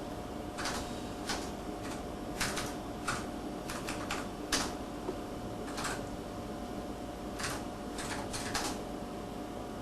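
Keystrokes on a computer keyboard: about a dozen irregular clicks, some in quick pairs, over a steady hum.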